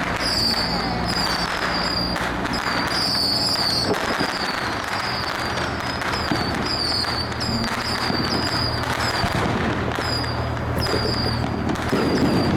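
Strings of firecrackers crackling without a break, set off from fishing boats, over the steady low drone of the boats' engines.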